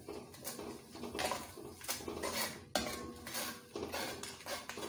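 A ladle stirring and scraping a thick onion-tomato masala around a coated cooking pot in repeated strokes, with one sharper knock of the ladle against the pot about two and three-quarter seconds in.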